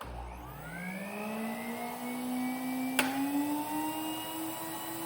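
1992 Panasonic Jet-Flo MC-9530 canister vacuum cleaner switched on: its motor spins up with a rising whine and settles into a steady high whine that still creeps upward, with a sharp click about three seconds in. The owner takes the motor's state to mean it needs new bearings or new grease.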